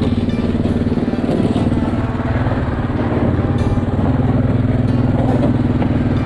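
Yamaha Kodiak 700 ATV's single-cylinder engine running steadily under way, its pitch edging up slightly about four seconds in.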